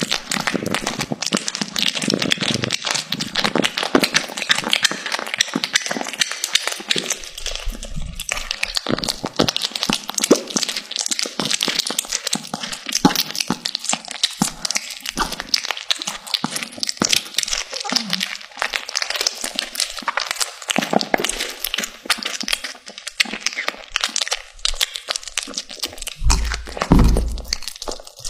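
A cat chewing raw meat close to the microphone: a dense, irregular run of wet smacks and small crunching clicks. A couple of low thumps come near the end.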